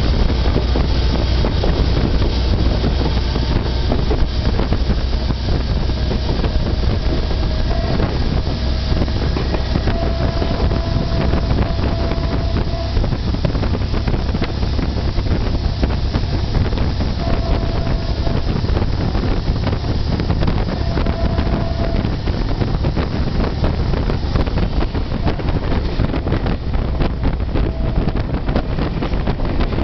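Passenger train running on the rails: a steady low rumble with rapid clicking and wind buffeting the microphone. A faint whine comes and goes a few times.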